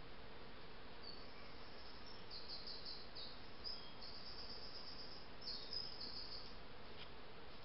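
High-pitched chirps and short rapid trills, repeated several times and loudest near the end, over the steady hiss of a trail camera's microphone.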